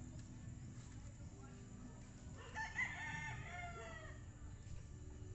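A rooster crowing once, about halfway through: a single call of about a second and a half that drops in pitch at the end.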